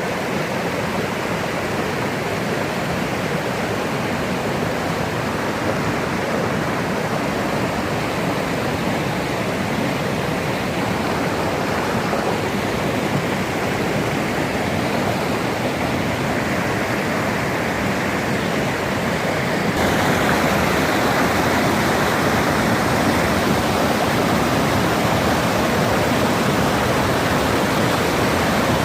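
Waterfall water rushing in a steady roar, stepping up louder suddenly about two-thirds of the way through.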